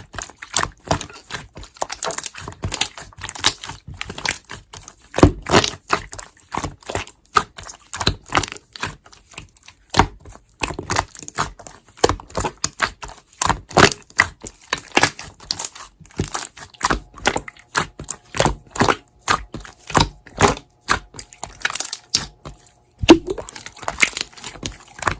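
Slime being squeezed and pressed by hand, giving an irregular stream of sharp clicks and pops from trapped air, several a second.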